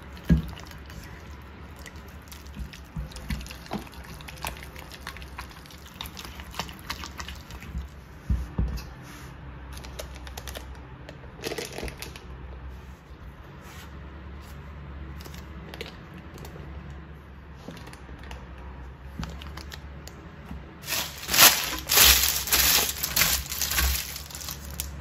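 Silicone spatula stirring and squishing soft choux dough with egg in a metal pot, with wet slaps and scrapes against the pot. Near the end, baking paper rustles and crinkles loudly as it is spread on a baking tray.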